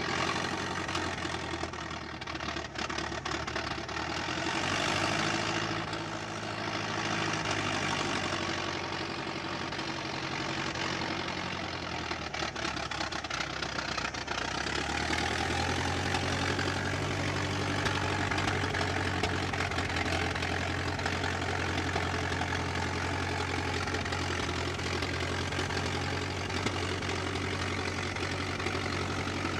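Engine of a 1920s American car running, a low engine note with a knocking rattle; it shifts in pitch over the first half, then settles into a steady low drone from about halfway in.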